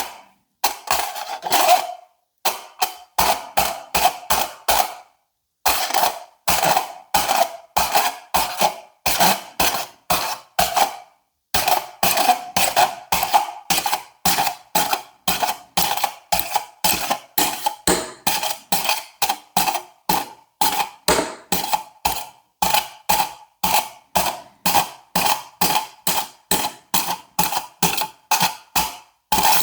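Pins being poked one at a time through aluminium foil stretched tight over a cup: a crisp tap-and-crackle at each puncture, about two a second, with a few short pauses.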